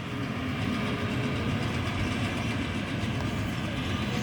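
Tractor pulling a hay baler through the field, engine and baler machinery running steadily with a dense, even mechanical clatter.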